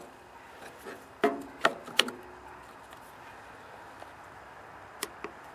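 Sharp clicks and clacks of spring-loaded jump-starter clamps being clipped onto a lawn tractor battery's terminals: three clicks close together a second or two in, and one more near the end, over a faint steady hiss.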